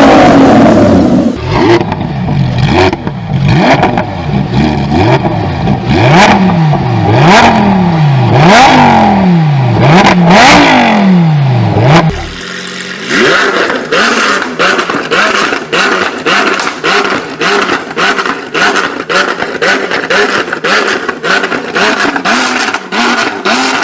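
Lamborghini supercar engines revving. A Huracán Tecnica's V10 is blipped up and back down several times in quick succession. About twelve seconds in it switches abruptly to an Aventador SVJ's V12, higher and thinner, with many rapid sharp pops.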